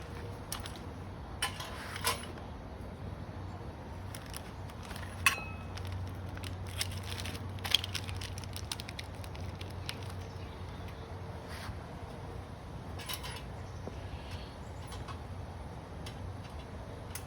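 Scattered metallic clinks and clicks of exhaust parts and hand tools being handled and fitted on a motorcycle, with two sharper clinks about five and eight seconds in.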